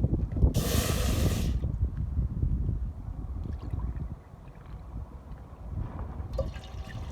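Wind buffeting the microphone as an uneven low rumble, strongest in the first few seconds, with a loud hiss lasting about a second, half a second in.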